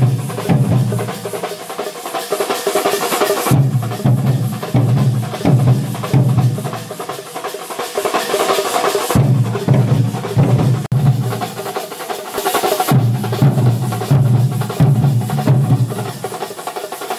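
A troupe of large stick-beaten barrel drums playing a fast, driving rhythm, deep beats under a bright clatter. The drumming breaks off and picks up again abruptly a few times.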